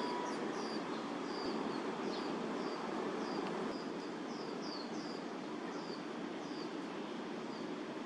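A small bird chirping over and over, short high notes sliding downward about twice a second, over a steady low hum of distant city traffic.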